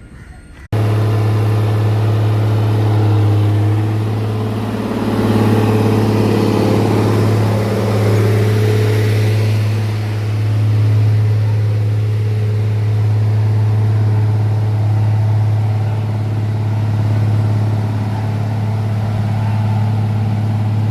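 An engine running steadily with a low, even hum that cuts in abruptly about a second in, swelling slightly a few seconds later.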